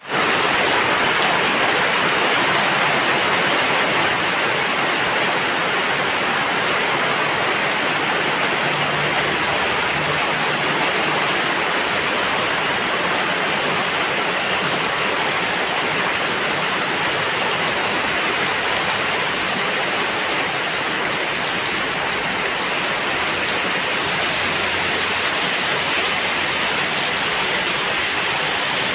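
Heavy rain falling steadily on a wet gravel and concrete yard, with water pouring off a roof edge and splashing into puddles.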